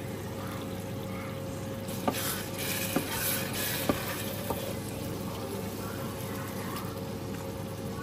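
Tomato stew bubbling and sizzling in a pot, with a wooden spoon stirring it and knocking against the pot a few times about two to four seconds in. A faint steady hum runs underneath.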